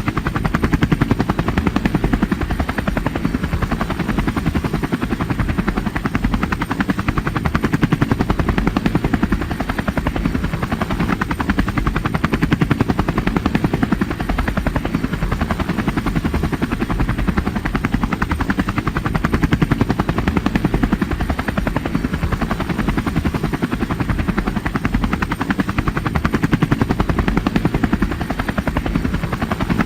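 Helicopter rotor chopping steadily in a fast, even beat, heavy in the low end.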